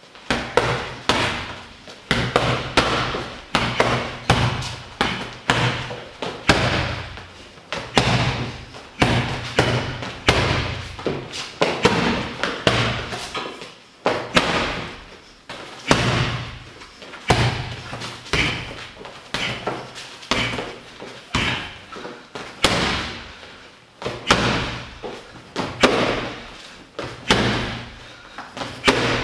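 Gloved punches landing on a shaped heavy boxing bag: quick flurries of sharp thuds, several a second, with short pauses between combinations.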